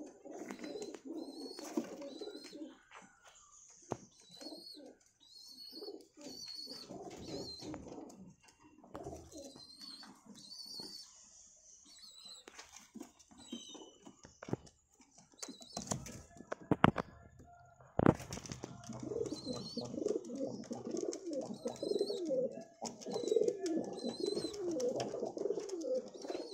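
Many domestic high-flyer pigeons cooing in a loft. The cooing comes in stretches and is fullest near the start and over the last third, with short high chirps through the first half and a few sharp knocks about two-thirds through.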